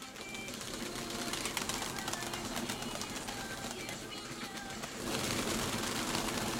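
Domestic pigeons cooing and flapping, with many small clicks throughout, louder about five seconds in.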